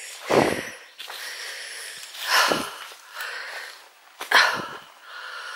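A person breathing heavily while walking, with three loud, breathy exhalations about two seconds apart.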